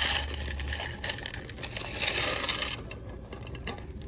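Loose quarters clinking and rattling together as a pile of coins from a candy machine's coin box is handled, a dense run of small metallic clicks, loudest at the start and again about two seconds in.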